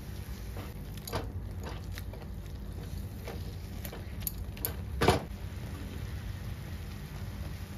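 Silicone spatula stirring and scraping a thick semolina and grated-potato mixture in an aluminium kadhai: scattered soft scrapes and clicks, with one louder knock about five seconds in, over a steady low hum.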